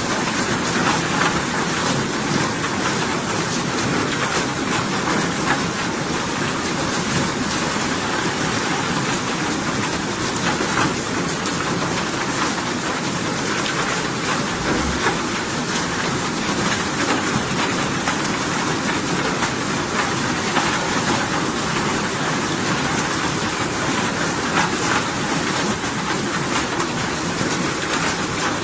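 Steady rain falling: an even, unbroken hiss with a low rumble beneath it and faint scattered drop ticks.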